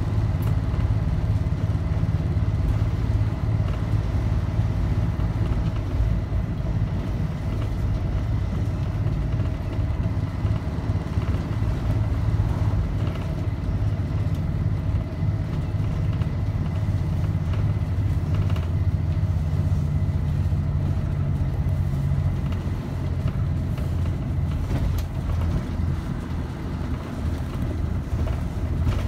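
1941 Yellow Coach Silversides bus's Detroit Diesel two-stroke engine running steadily at cruising speed, a continuous low drone heard from inside the bus.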